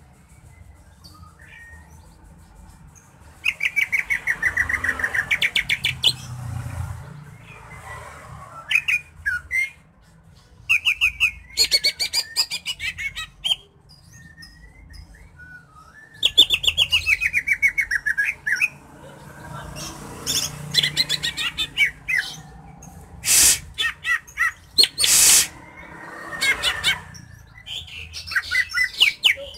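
A caged greater green leafbird (cucak hijau) singing a varied song of fast rattling trills and short whistled phrases. Two short, loud, harsh notes come about three-quarters of the way through.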